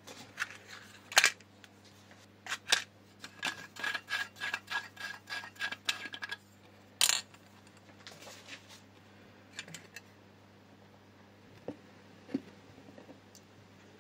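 Small metal parts of an antique hurricane lantern clicking and tapping as they are handled. A quick run of clicks with a faint ringing note, about four a second, comes in the middle, with single sharp clicks before and after, over a faint steady low hum.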